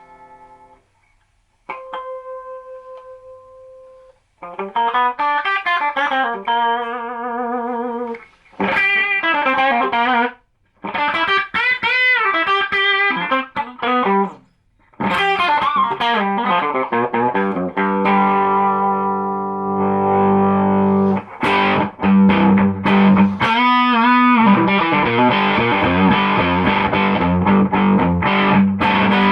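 Electric guitar with DiMarzio humbucker pickups played straight into a single-ended EL84 valve amp with a 6N3P preamp tube, no effects. It starts with a single ringing note, moves to strummed chords with string bends, and ends on sustained, fuller chords from about two-thirds of the way in.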